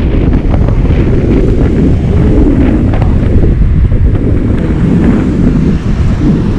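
Wind buffeting the camera microphone while riding a Honda ADV160 scooter at about 80 km/h, with the scooter and road running underneath.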